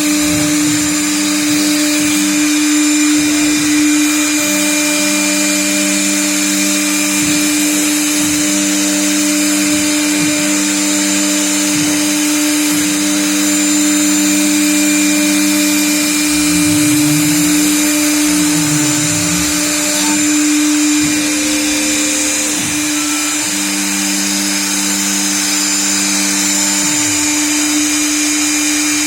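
CNC router cutting letters: the spindle motor runs with a steady whine, while the axis stepper motors add a lower tone that starts and stops again and again and glides up and down as the cutter moves.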